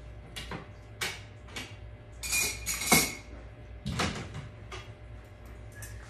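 A run of short, irregular clicks and clinks, like light hard objects knocking together, with the loudest clatter about halfway through, over a steady low hum.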